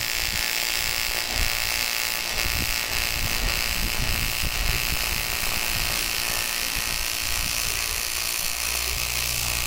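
AC TIG welding arc on aluminium, a steady buzzing hiss held without a break while a shaft is built up with weld. A low hum joins it near the end.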